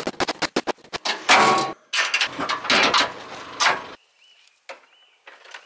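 Split firewood logs knocking and clattering as they are thrown onto a pile: a quick run of sharp wooden knocks, then a few louder, longer clatters, dying away after about four seconds to a few faint knocks.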